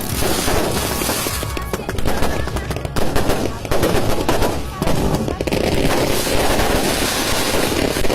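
Fireworks going off in a rapid, unbroken barrage of bangs and crackles.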